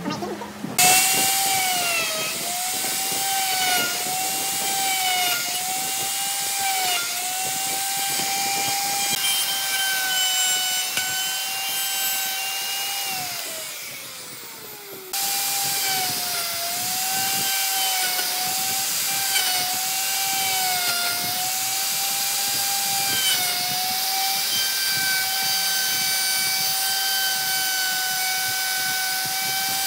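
Electric router cutting into wood: a high motor whine whose pitch dips each time the bit bites and then recovers. About halfway through, the whine falls in pitch as the motor spins down, then the router is running and cutting again.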